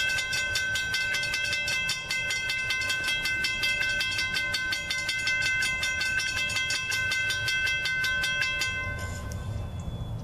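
Railroad grade-crossing bell ringing in rapid, even strokes, stopping about nine seconds in, over a low rumble.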